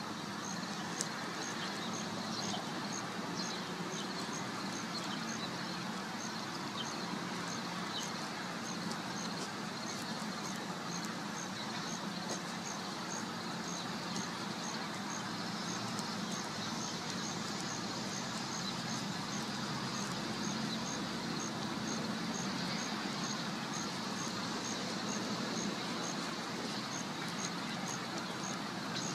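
Canada goose feeding on grass close by, against a steady low background hum, with a faint high chirp repeating at an even pace of roughly one to two a second.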